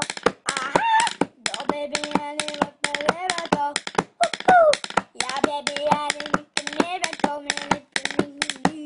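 A pencil tapped like a drumstick, several quick taps a second in an uneven rhythm, while a child's voice hums along on held, wavering notes.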